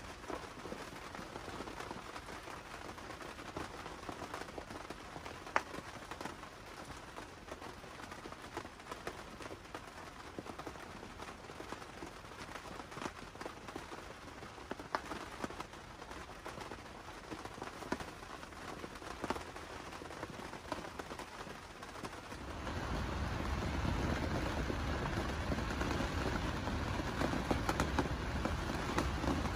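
Steady rain with scattered drops ticking, becoming abruptly louder and heavier about 22 seconds in.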